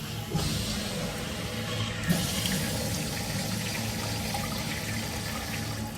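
Water rushing steadily through a public restroom fixture, starting about a third of a second in and growing louder about two seconds in.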